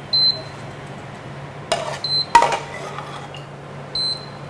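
Metal ladle clinking and scraping against a stainless steel frying pan as braised red cabbage is served out of it: several short, ringing metal clinks, near the start, twice around the middle and once near the end.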